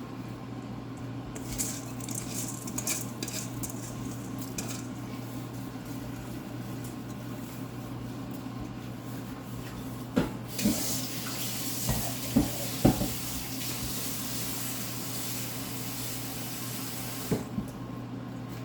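Soaked rice going into a clay pot, with utensils clinking and knocking against the pot, then a kitchen tap running for about six seconds from a little past halfway, as water is drawn for the rice.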